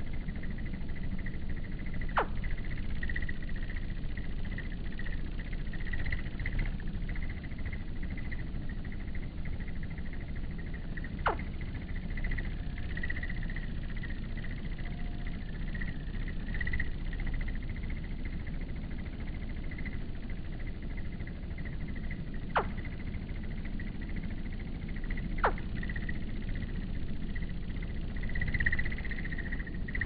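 Steady outdoor evening ambience: a low rumble under a wavering, insect-like high hum, with four brief sharp chirps that sweep down in pitch spread through it.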